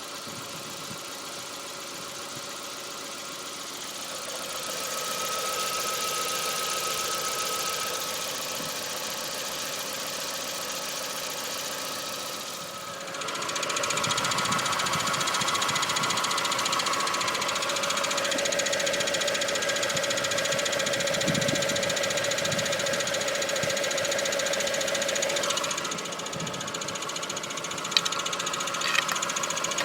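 Volkswagen Golf Mk4 GTI's 1.8-litre turbocharged four-cylinder engine idling, heard from underneath the car, with a constant put-put-put that the owner suspects is a loose pipe or an altered exhaust note behind a rough idle vibration. The sound grows louder about 13 seconds in, and two sharp knocks come near the end.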